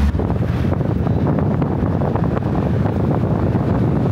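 Wind buffeting the microphone: a steady rumbling, crackling rush.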